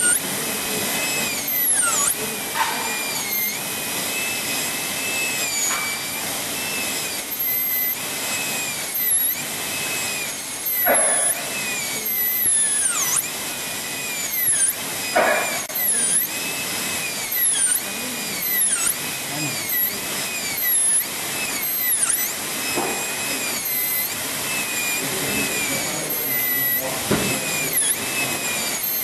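High-speed dental handpiece with water spray cutting an abutment tooth on a training model: a high-pitched whine that dips in pitch again and again as the bur bites and recovers, over a steady hiss.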